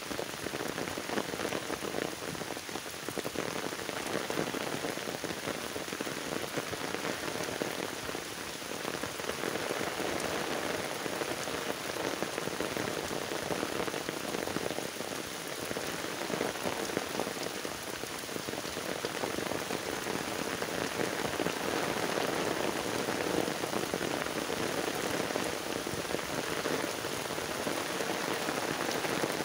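Heavy rain falling onto floodwater and wet ground: a dense, even hiss that holds steady throughout.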